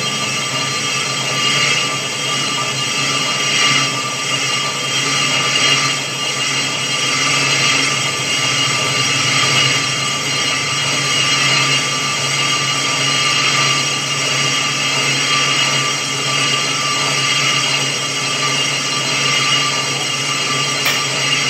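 Metal lathe turning a Toyota Fortuner brake rotor as the cutting tool takes a resurfacing pass across its face: a steady machine running sound with high ringing tones held throughout.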